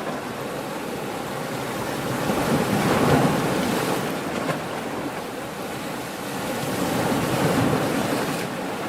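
Ocean waves breaking and washing on the shore, the surf swelling twice, about three seconds in and again near the end.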